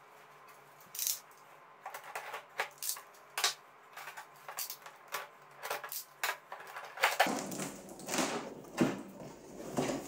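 A cardboard box being cut and opened with a utility knife: a string of sharp clicks and scrapes, then denser rubbing and rustling of cardboard as the flaps are pulled back over the last few seconds.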